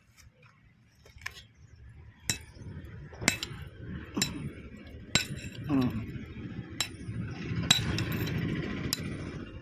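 Sharp metal-on-metal clinks, roughly one a second, over a low rumble that grows in the second half.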